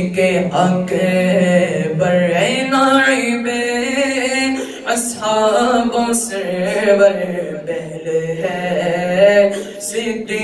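A young male voice singing an Urdu Salam (a devotional salutation to the Prophet) unaccompanied into a microphone, in long melismatic phrases over a steady low drone.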